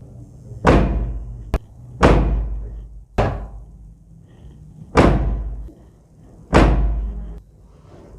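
Five heavy thuds, roughly one every second and a half, each dying away over about half a second, with one short sharp click between the first and second.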